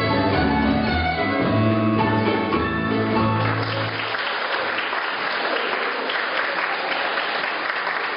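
Fiddle and guitar finishing a tune, the last notes ending about three and a half seconds in, then applause.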